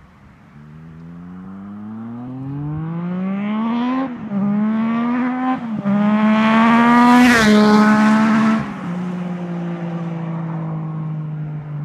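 Yamaha FZ-09's inline three-cylinder engine with a Yoshimura R77 exhaust accelerating hard past, its pitch climbing through two quick upshifts. The note is loudest as it passes, drops in pitch about seven seconds in, then eases off to a lower, quieter steady note as the bike rides away.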